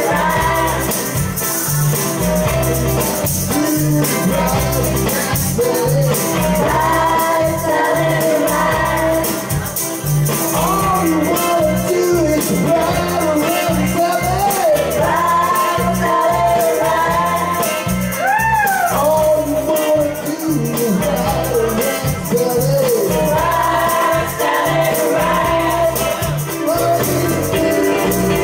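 A man singing into a microphone over amplified backing music with a steady beat, a rhythm-and-blues number.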